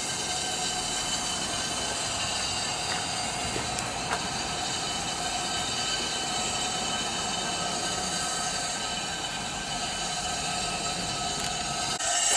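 Puffing Billy steam locomotive 7A with steam up, hissing steadily with several high, even whistling tones over the hiss.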